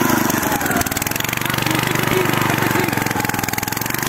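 Engine of a walk-behind tractor running steadily while it pulls a plough through the soil.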